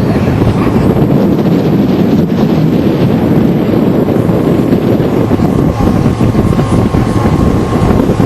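A boat's engine running at steady speed under way, with wind buffeting the microphone: a loud, steady noise with a faint constant tone on top.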